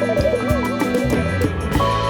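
Background music: a steady beat with a wavering lead melody over held low tones.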